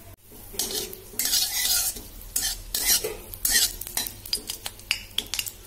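Metal spatula stirring a dry red chilli in a little hot mustard oil in a kadhai, the oil sizzling. Hissing comes in bursts in the first two seconds, followed by a run of quick scrapes and taps of the spatula against the pan.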